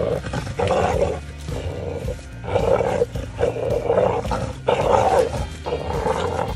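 A dog growling in rough pulses, about one a second, while it bites and tugs on a rope-tied rubber puller, over background music.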